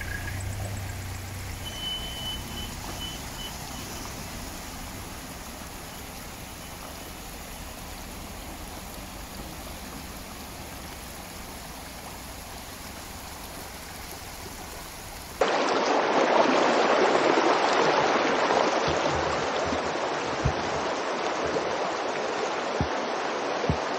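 Muddy floodwater running through a riverbed: a faint, steady rushing that becomes much louder and brighter after an abrupt cut about two-thirds of the way through, with a few light clicks near the end.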